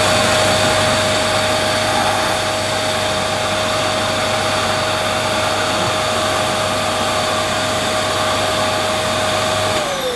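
Dyson DC11 canister vacuum running with a steady whine and rush of air drawn through its air-driven turbine floor head, whose brush bar turns only slowly: the head appears faulty. Near the end the motor is switched off and its whine falls as it runs down.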